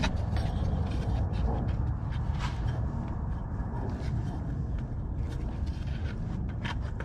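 Faint clicks and light scrapes of a paper oil-filter cartridge being handled and pushed into its housing, over a steady low background rumble.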